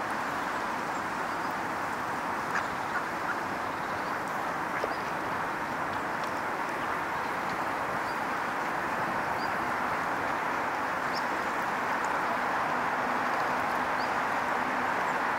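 A female gadwall gives a few brief, soft calls in the first five seconds. A steady rushing background noise runs under them and is the loudest sound throughout.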